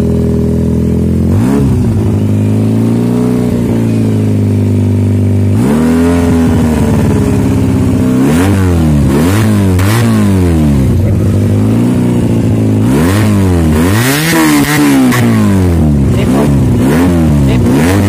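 Carbureted Kawasaki Ninja 250 four-stroke parallel twin, its engine reworked to sound like a 1000cc big bike, running at idle and being blipped on the throttle. It starts with a few slower revs, then from about halfway through it is revved in quick blips, roughly one a second.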